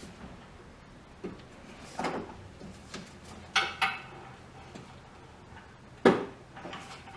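A few short plastic clicks and knocks from handling a headlight assembly and pushing its wiring connector home, the loudest one near the end.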